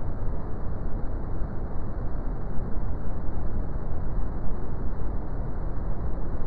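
Brown noise: a steady, deep rumbling hiss with most of its weight in the low end and little treble.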